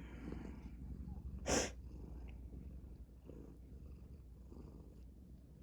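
A domestic cat purring low and steady close by. About one and a half seconds in there is a brief, sharp sniff.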